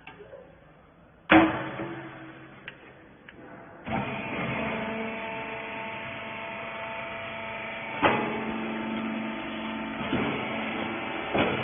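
A loud metallic clang, then about four seconds in the rag compression baler's motor and hydraulic pump start and run with a steady hum. Sharper metal knocks come twice more, about eight seconds in and near the end.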